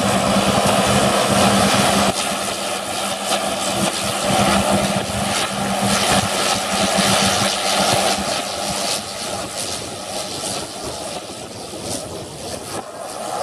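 Turboprop engines of a North American OV-10A Bronco running as it taxis, with propeller noise, and a second turboprop, a Grumman S-2T Turbo Tracker, running alongside at first. A steady hum drops out abruptly about two seconds in. The engine sound then grows gradually fainter toward the end as the Bronco moves away.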